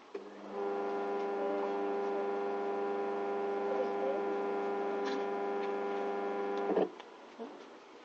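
Washing machine wash motor (dinamo) switched on and humming steadily, then cut off with a click near the end. The motor hums but turns weakly: the technician judges the motor itself weak, not its capacitor, which he has already replaced twice.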